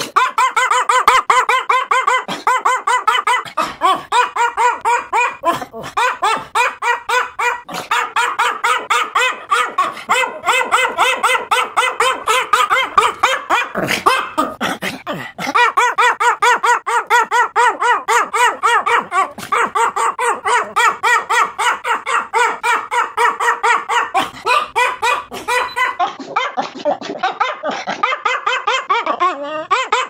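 Small white spitz-type dog barking in short, high yaps ("borks"), several a second in long rapid runs with a few brief breaks.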